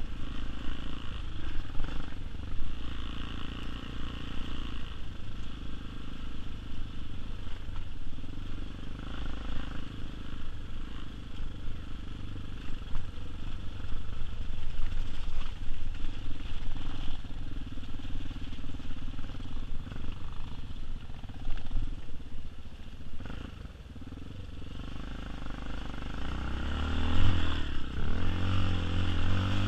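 Tao Tao TBR7 dirt bike's single-cylinder engine running under way on a trail, its pitch rising and falling with the throttle, with several quick rev-ups near the end.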